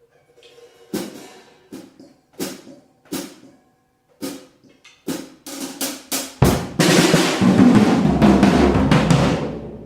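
An untuned, cheap secondhand drum kit being played: a few single drum hits spaced out, then quicker strokes, then from about six and a half seconds a loud stretch of drums under washing, crashing cymbals. The kit sounds cheap and nasty.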